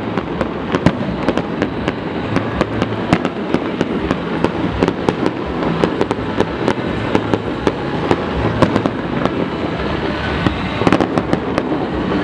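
Aerial fireworks bursting: a dense, unbroken run of bangs and crackles.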